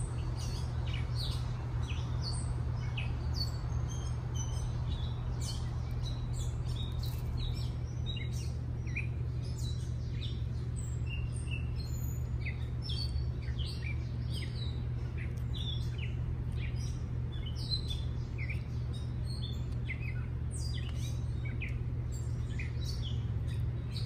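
Songbirds chirping with many short, scattered calls over a steady low hum.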